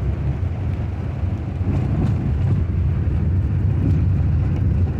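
Steady low rumble of a truck's engine and tyres, heard from inside the cab while driving.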